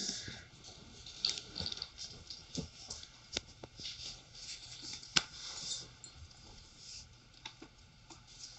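A sheet of printed paper being folded and creased by hand: soft rustling with scattered sharp crinkles and taps, the strongest about five seconds in.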